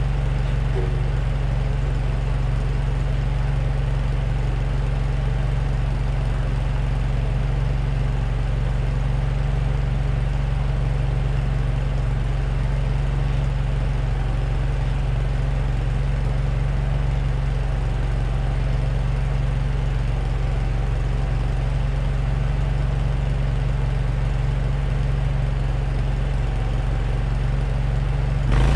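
An engine idling steadily: a low, even drone that holds unchanged and shifts suddenly just before the end.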